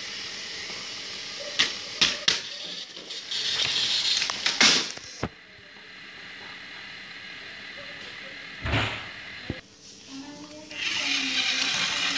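Battery-powered toy Percy engine whirring along blue plastic track, its motor noise coming and going as it runs around the layout, with a few sharp plastic clicks early on and a single knock near the middle.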